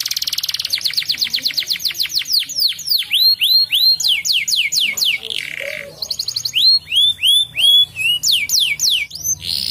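Crested canary singing: a fast rolling trill of rapid down-sweeping whistles, then slower separate whistled notes, broken twice by a short scratchy note.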